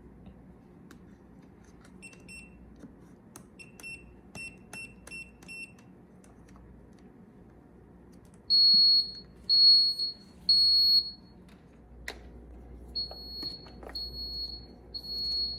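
Electronic beeper: a run of about five short high beeps, then three long, louder beeps a second apart, repeated more softly near the end, with a few light clicks.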